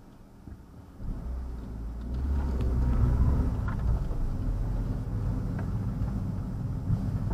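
Car engine heard from inside the cabin as the car pulls away from a standstill and accelerates. Its low rumble comes up about a second in and then holds steady.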